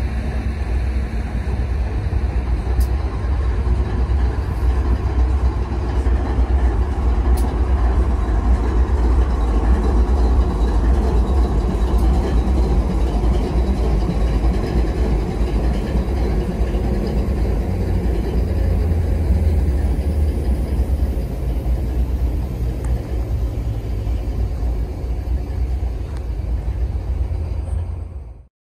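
Diesel-electric freight locomotives idling close by: a steady, deep engine rumble. It cuts off abruptly near the end.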